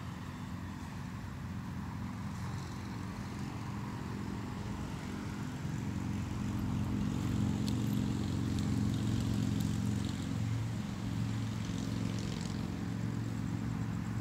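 Low engine drone of a passing motor vehicle, growing louder past the middle and easing off slightly near the end.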